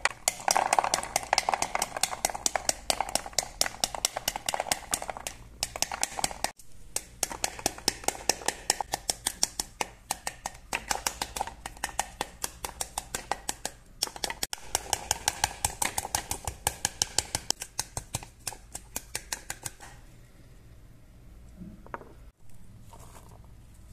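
Rapid, even tapping on the back of a green pomegranate section's rind, knocking the seeds loose so they drop into a glass bowl. The tapping pauses briefly twice and stops a few seconds before the end.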